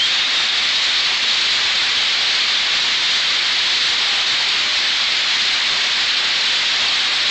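Heavy rain pouring down in a steady, dense hiss during a severe storm.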